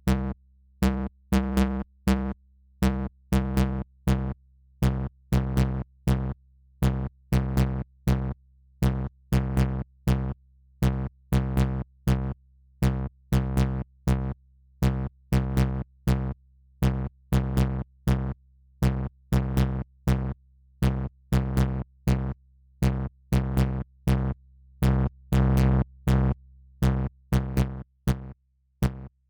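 Electronic music from a VCV Rack software modular synthesizer patch: a fast, evenly spaced run of short, pitched synth notes in a repeating pattern, their tone shifting from note to note. A held sound swells between the notes from about twenty-four seconds in.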